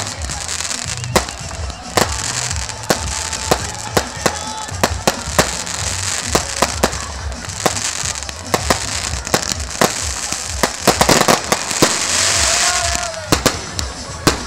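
Firecrackers and fireworks going off in quick, irregular succession, sharp bangs every fraction of a second, with a dense burst of crackling about eleven seconds in and a brief whistle just after.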